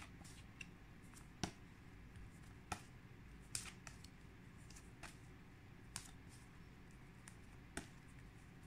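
Stiff paper flashcards being flipped off the front of a stack one after another, each card giving a faint sharp snap, about one a second, over near-silent room tone.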